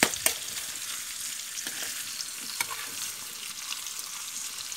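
Potato chunks and sliced sausage sizzling as they fry in oil in a frying pan, while a metal spoon stirs them and clinks against the pan a few times, sharpest right at the start.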